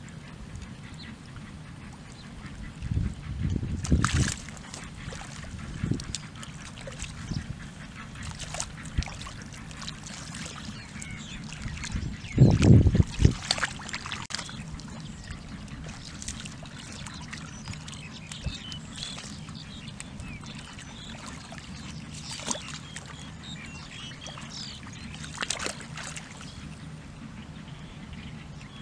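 Hands sloshing and squelching through shallow muddy water, with a couple of louder splashes, once about four seconds in and again about halfway through.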